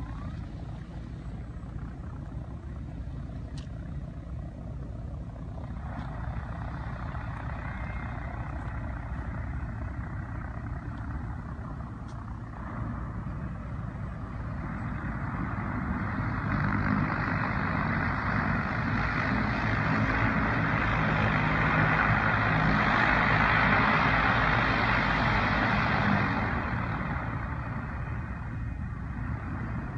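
Engines and propellers of a manned advertising blimp (the Snoopy J airship) droning as it flies low and approaches, growing louder from about halfway through, then easing off sharply a few seconds before the end.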